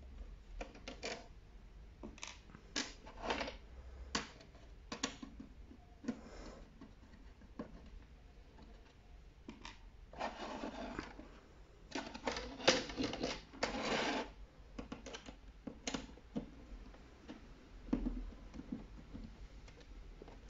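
Small screwdriver clicking and scraping as screws are worked out of a ring light's LED board and its plastic housing. Scattered short clicks, with a few longer scraping stretches about halfway through.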